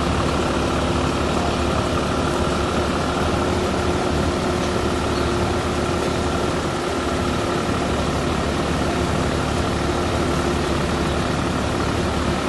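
Pickup thresher machine running steadily: a constant low engine rumble under a steady mechanical whine, with no change in speed.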